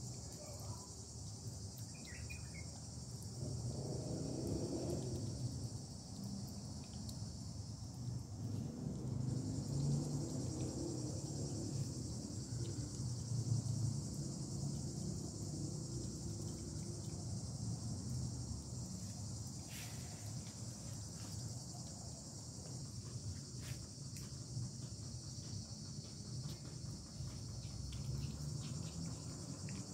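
A steady chorus of insects, such as crickets or cicadas, singing in a high even band, with an uneven low rumble underneath.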